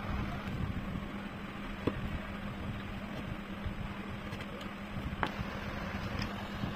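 A hand chisel cutting into hardwood, with two sharp clicks, one about two seconds in and one a little after five seconds, over a steady low hum.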